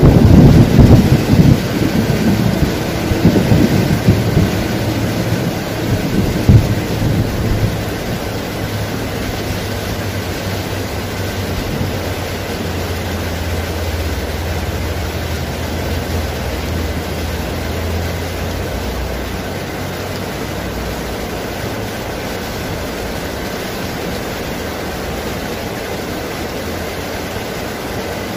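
Heavy tropical rain pouring steadily on forest foliage. A rolling thunderclap fades out over the first several seconds, with a sharp crack about six seconds in.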